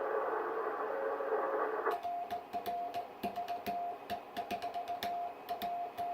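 Amateur radio transceiver on Morse code: hiss of band noise with a faint keyed signal in it, then about two seconds in the noise cuts off. A clear, steady-pitched beep sends Morse code, with sharp clicks along with the keying.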